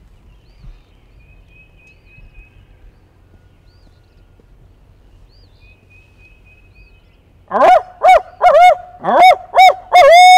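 Owl hooter locator call, blown close by as a string of about seven loud rising-and-falling hoots over the last three seconds, the final hoot held longest. It is sounded to make a gobbler answer so he can be located.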